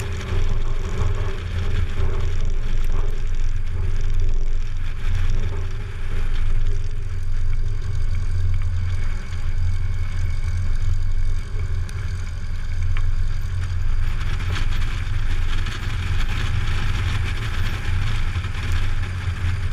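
Light aircraft's engine and propeller running steadily at low taxi power, a constant low drone while the plane rolls over grass.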